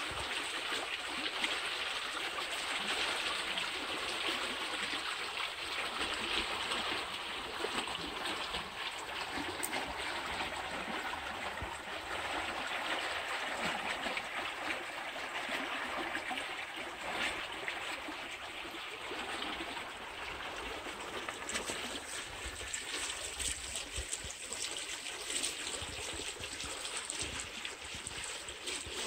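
Canal water flowing and spilling over stones, a steady rushing.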